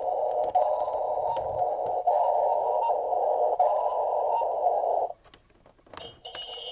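Dickie Toys tug boat's built-in electronic sound effect playing through its small toy speaker, a tinny steady sound that cuts off about five seconds in. About a second later a button click is followed by a different, higher-pitched sound effect starting.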